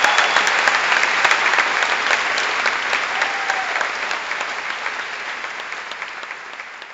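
Audience applauding: many hands clapping at once, strongest at the start and gradually dying away.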